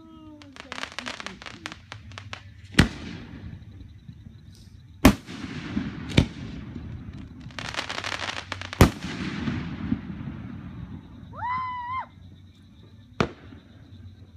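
Aerial fireworks shells bursting: five sharp booms spaced a few seconds apart, with dense crackling from crackle-effect stars twice, near the start and just before the fourth boom.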